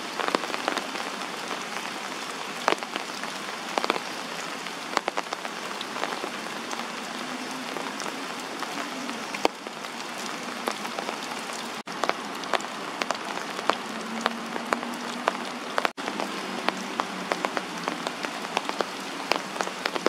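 Steady heavy rain falling, with many sharp individual drop hits.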